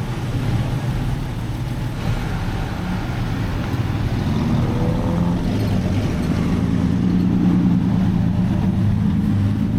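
Jeep engine running steadily on the road, its low drone growing slightly louder and firmer in the second half.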